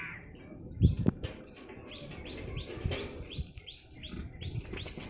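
A small bird chirping over and over in a steady rhythm, about three short high chirps a second, starting about a second in, with a couple of low thumps just before.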